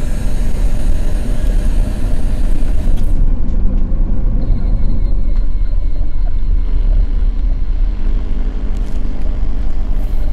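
A loud, deep rumbling drone, heaviest in the bass, from the sound piece. A few steady tones come in over it near the end.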